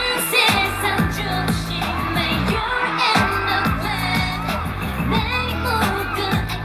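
Live K-pop girl-group performance: a heavy, bass-driven dance-pop track with the group singing over it.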